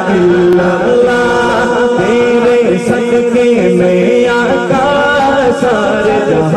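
A man singing a devotional Urdu/Arabic hamd (naat-style) into a microphone. The vocal line is melodic and ornamented, gliding between notes over a steady sustained low drone.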